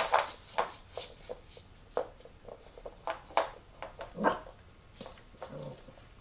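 Puppies playing with chew bones on a hardwood floor: a quick, irregular run of sharp clicks and knocks, with a couple of short puppy barks about four and five and a half seconds in.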